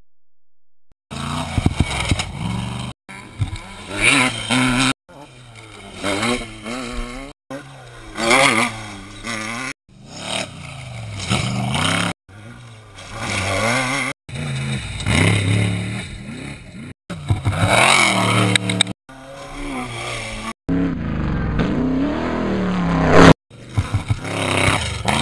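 Off-road race trucks and buggies passing at full throttle, engine pitch rising and falling as each one goes by. The sound comes as a run of short clips, each a couple of seconds long, broken off by abrupt cuts.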